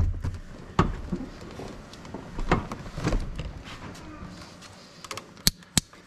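Scattered knocks and clicks of hands working under a pickup truck's dash as the tilt steering wheel is raised back up. Near the end come two sharp clicks about a third of a second apart.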